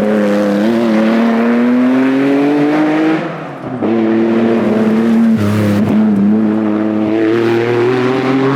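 Lancia Stratos rally car's engine under hard acceleration, revs climbing steadily, with a brief dip about three seconds in as the driver lifts for a gear change before it pulls again in the next gear.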